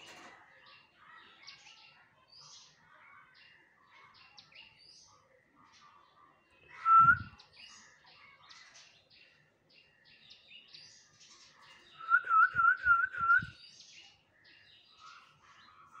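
Caged myna calling: one loud whistled note about seven seconds in, then a quick run of five repeated whistled notes near the end, over faint, continuous chirping of other birds.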